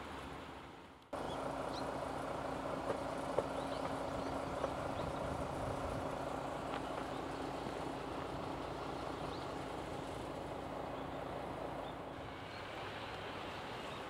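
Train running on the line, heard from on board: a steady rumble with a low hum and a few sharp clicks in the first seconds. Near the end it drops to quieter outdoor background.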